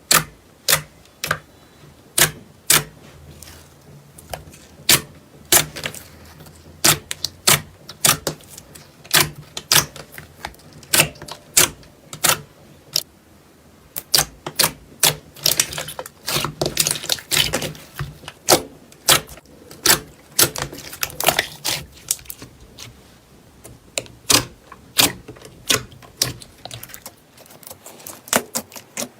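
Slime being squeezed and poked, making a run of sharp, irregular clicks and pops, about one or two a second, with a denser crackling stretch a little past the middle.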